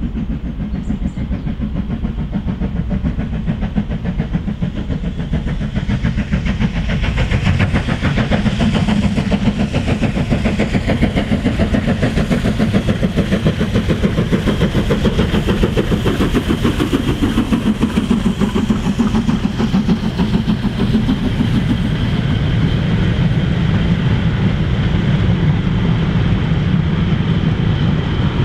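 Preserved British steam locomotive hauling a goods train, its exhaust beating rapidly with the rumble and clatter of the train on the rails, getting louder about six seconds in.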